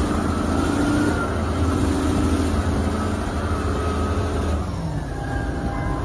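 Large Caterpillar wheel loader's diesel engine running hard under load as it raises a big bucket, a deep steady rumble. The engine note changes about five seconds in.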